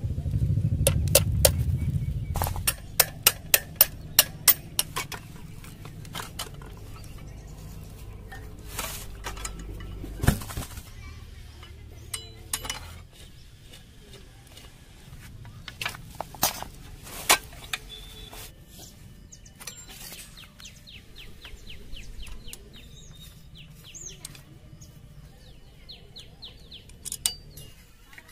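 Metal tools and parts clinking and knocking, with a quick row of about six sharp metallic taps a couple of seconds in and scattered single clicks after. Near the end come short runs of fine rapid ticking. For the first two seconds or so, a small engine runs low before falling silent.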